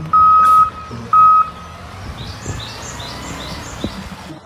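Garbage truck's reversing alarm beeping twice at one steady pitch, then the truck's engine running, with birds chirping in the second half.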